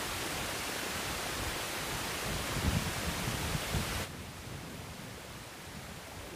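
Steady hiss of wind and waves breaking on the breakwater rocks, with a few low knocks of handling near the mic in the middle; the hiss drops suddenly to a lower level about four seconds in.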